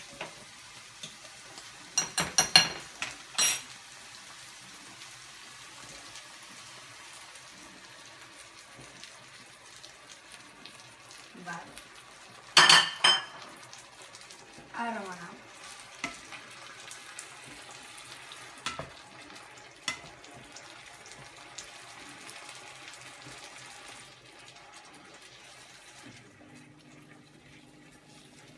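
Garlic and yellowfoot mushrooms frying in hot oil in a pan, a steady sizzle, while a wooden spatula stirs them. The spatula scrapes and clatters against the pan, loudest about two to three seconds in and again near the middle.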